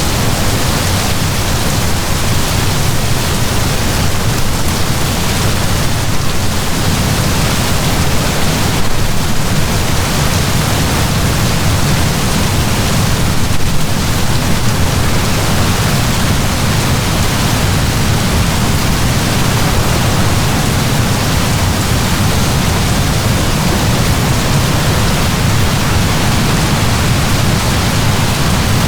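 Heavy rain pouring down steadily, a dense even hiss of drops with a deep low rumble beneath it.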